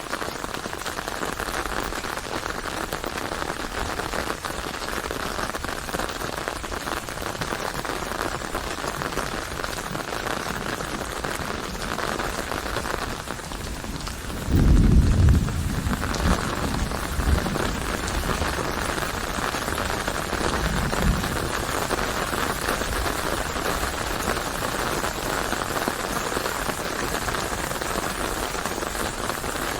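Steady rain falling, with a loud low rumble of thunder about halfway through and a couple of fainter rumbles after it.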